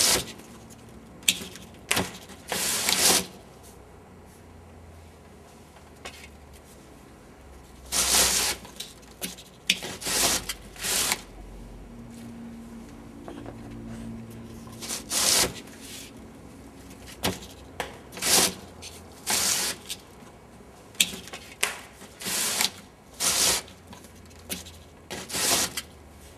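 A series of short scraping and rubbing noises, each under a second and irregularly spaced, from a cardboard-and-wood catapult mechanism being worked.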